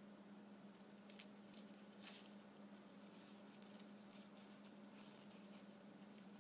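Faint rustling and light clicks of a paper-and-felt sequin shaker craft being handled and pressed, over a steady low hum.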